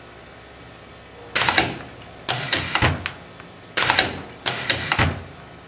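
Gorman Machine Corp Hustler hook winding machine cycling as it winds 15 gauge copper wire onto a core: four short clattering bursts, each about half a second long and roughly a second apart.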